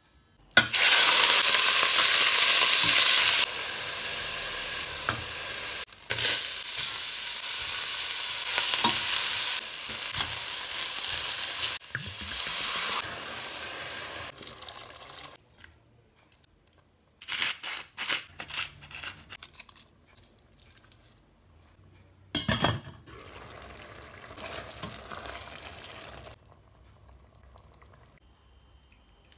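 Beef goulash ingredients frying in hot oil in a stainless steel pot: a loud, steady sizzle that jumps in level at edit cuts and stops about halfway through. A spatula then clatters and scrapes in the pot, with a sharp knock, and a quieter sizzle follows until near the end.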